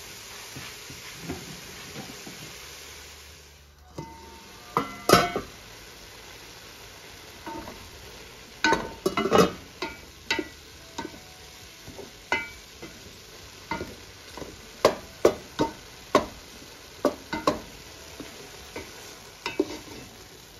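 Minced chicken and onion sizzling in a stainless steel pot while a wooden spoon stirs it. From about five seconds in, the spoon knocks and scrapes against the pot again and again.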